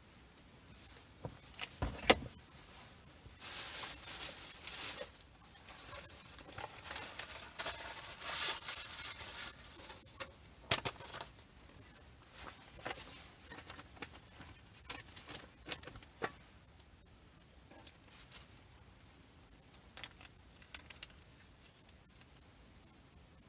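Camping gear being handled: scattered clicks, knocks and rustling, with a sharp thump about two seconds in and two longer stretches of rustling. A steady, high-pitched insect drone runs underneath.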